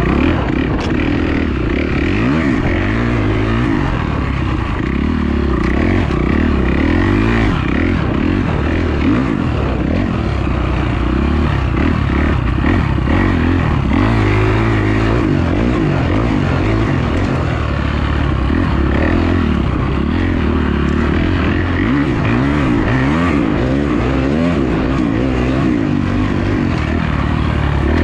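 Kawasaki dirt bike engine running hard and revving up and down continuously as it is ridden along a trail.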